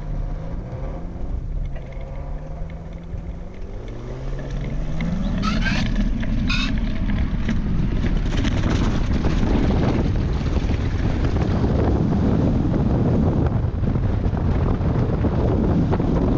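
Aerotow tug's engine running, then rising in pitch about four seconds in as it powers up for the tow. After that comes a loud rush of wind on the microphone over the rumble of the hang glider's wheeled launch cart accelerating down the runway, with two brief sharp sounds around five and six seconds in.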